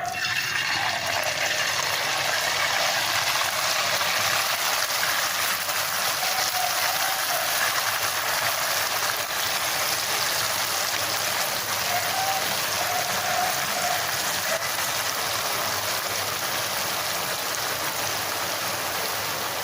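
Rice-flour murukku deep-frying in hot coconut oil: a steady bubbling sizzle that starts abruptly and holds even throughout.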